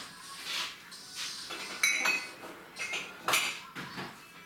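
Dishes and cutlery clinking and knocking together in a kitchen sink during washing up, with one sharp ringing clink about two seconds in.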